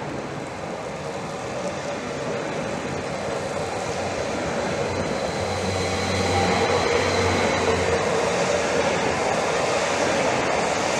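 Two coupled Stadler FLIRT electric multiple units running past close by: a steady rush of wheels and running gear that grows louder, with a thin high whine throughout and a low hum joining about halfway.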